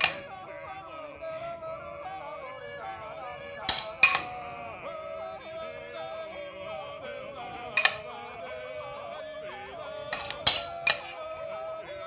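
Background music with a melody line, with a metal spoon clinking sharply against a small glass bowl about five times as garlic and oil are stirred and scooped out.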